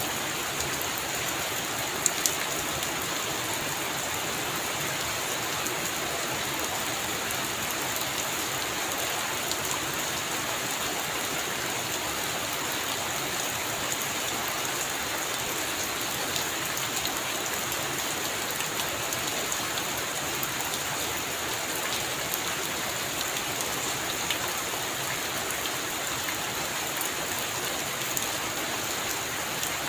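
Steady heavy rain, an even hiss with scattered sharper drop hits, two close together about two seconds in.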